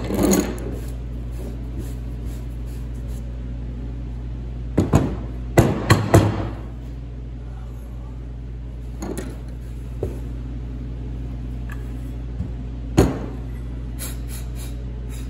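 Metal parts knocking and clinking as a snowmobile drive clutch and tools are handled and set down on a workbench: a cluster of knocks about five seconds in, then single knocks, the last and sharpest near the end, over a steady low hum.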